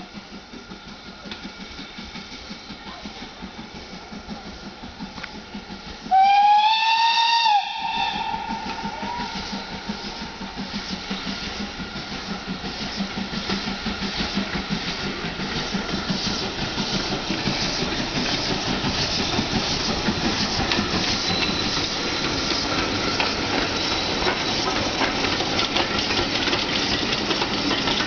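Stanier Mogul steam locomotive No. 42968 sounds its whistle once about six seconds in, a blast of about a second and a half whose pitch slides up at the start. Before and after the whistle, the running sound of the locomotive and its coaches keeps up a steady rhythmic beat and grows louder as the train approaches.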